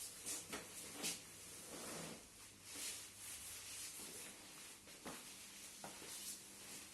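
Faint rustling and rubbing of clothing and treatment-table padding as a chiropractor handles a patient, with a few soft swishes in the first second or so and faint clicks later.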